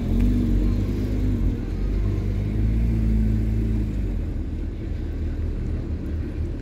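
A car engine running with a steady low hum; the hum eases off a little about four seconds in.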